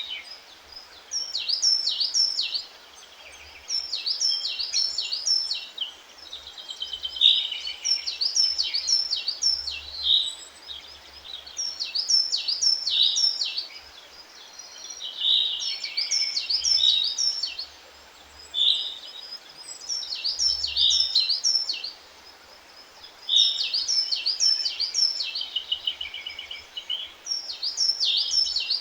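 Songbirds singing short, fast chirping song phrases that repeat every two to three seconds with brief pauses between, over a steady faint hiss.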